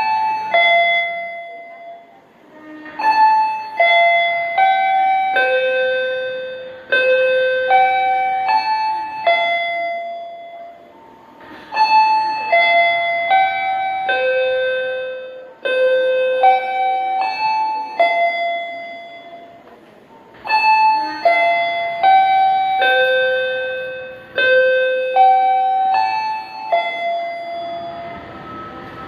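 Railway station chime melody over the public address: a bell-like keyboard tune of single ringing notes, played through about three times with short pauses between phrases. It is the tune played as a train approaches the platform.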